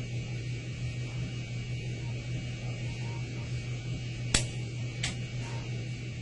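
Steady low hum with a faint hiss, broken by two sharp clicks under a second apart a little past halfway.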